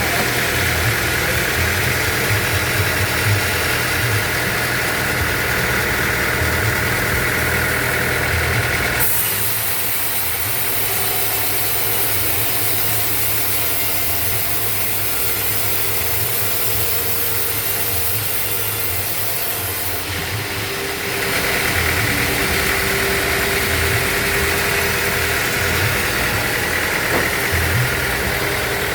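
Band sawmill machinery running with a steady motor drone. About nine seconds in the sound changes abruptly to a thinner, hissier tone, and it returns to the first sound about twenty seconds in.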